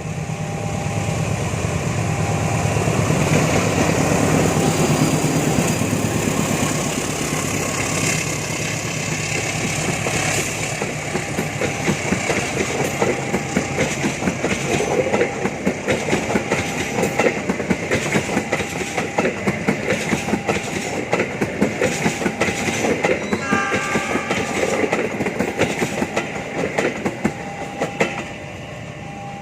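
A train passing close by, its engine rumble giving way to a long, fast, rhythmic clatter of wheels over rail joints, which stops about a second before the end. A short horn sounds briefly about two-thirds of the way through.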